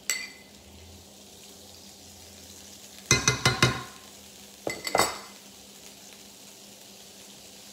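Vegan butter melting in an electric skillet, giving a steady faint sizzle. A quick run of knocks and clinks from a metal spoon and the butter container comes about three seconds in, and another near five seconds.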